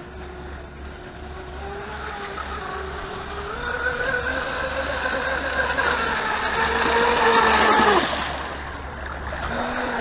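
Volantex Atomic 792-4 RC race boat's brushless electric motor whining at speed on a 3S LiPo, growing steadily louder as the boat comes closer. About eight seconds in the whine drops sharply in pitch and level as the boat passes by, then swells again near the end as it comes back around.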